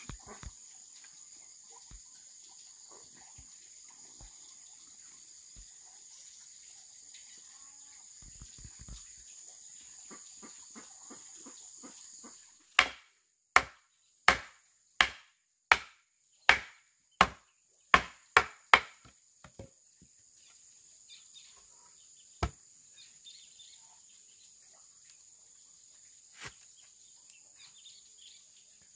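Steady high insect drone, then, about halfway in, a quick run of about ten sharp chopping strikes into wood, roughly three every two seconds, with one more strike a few seconds later.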